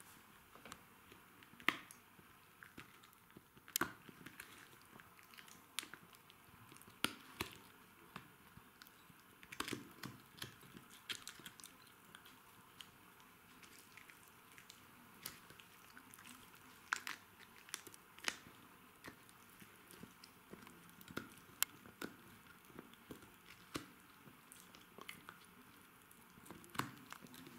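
Jack Russell terrier gnawing a hard chew stick: irregular sharp cracks and crunches, with quiet gaps between bites.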